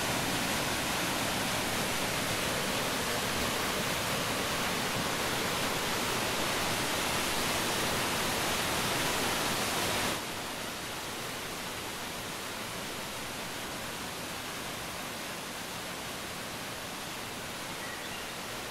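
A swollen river rushing over rapids, a steady, even wash of water. About ten seconds in it cuts off abruptly to a quieter, steady water sound.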